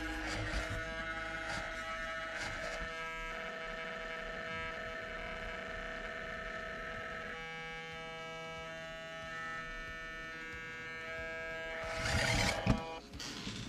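Background music of slow, held synth-like chords that change about halfway through. Near the end comes a short burst of rushing noise with a sharp click.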